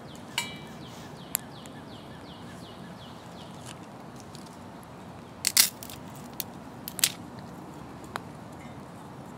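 Twigs burning in a small folding metal Bushbox wood stove, crackling with irregular sharp pops, the loudest cluster about five and a half seconds in and another at seven seconds.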